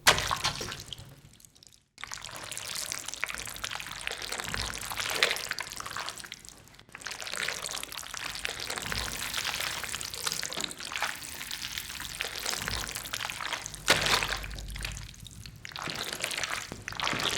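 Wet squelching and squishing of green pesto spaghetti worked by hand, foley for a rat's gory bursting. It goes as an irregular run of wet squishes with a few short pauses and a louder burst near the end.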